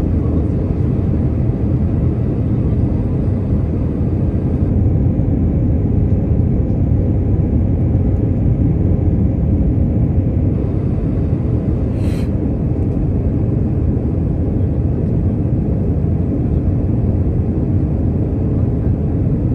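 Cabin noise of an Airbus A319 on approach, heard from a window seat beside the wing: the engines and the airflow past the fuselage make a steady low drone. A single short tick sounds about twelve seconds in.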